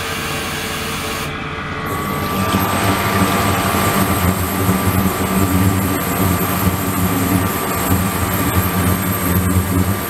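Water pouring and churning in a flowing-water ultrasonic tank with liquid circulating, over a steady machine hum. About two seconds in it grows louder and a thin, steady high tone comes in.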